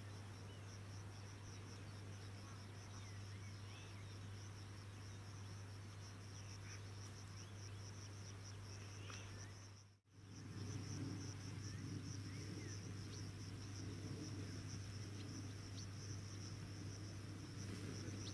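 Faint steady chirring of insects in the surrounding fields, a high continuous pulsing trill, with a low steady hum underneath and a few small bird-like chirps. The sound dips out briefly about ten seconds in and then resumes.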